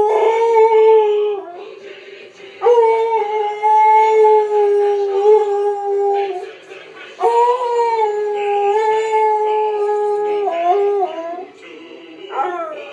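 Pit bull mix dog howling along with a TV commercial jingle: long, steady-pitched howls of a few seconds each with short breaks between, three in all and a fourth starting near the end, over the jingle's music.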